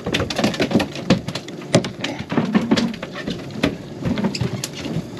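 A freshly landed mahi-mahi (dolphinfish) thrashing on the boat deck: a fast, irregular run of wet slaps and knocks as it flops about and spatters blood.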